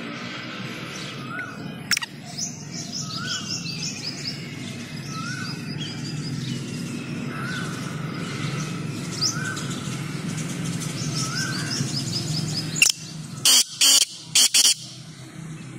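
Small birds chirp throughout, with a short rising-and-falling note repeating every second or two. Near the end a male black francolin (kala teetar) gives its loud, harsh call, a few grating notes in quick succession.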